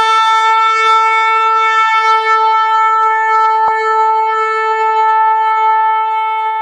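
A shofar (ram's horn) blown in one long, steady blast, with a single click about halfway through; the note begins to fade near the end.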